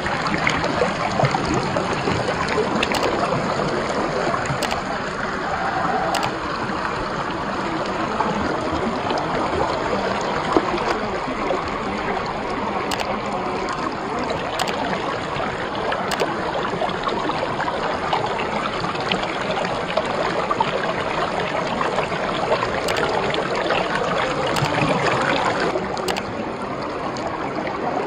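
Shallow rocky stream water rushing and trickling steadily, with a few faint sharp clicks now and then; slightly quieter near the end.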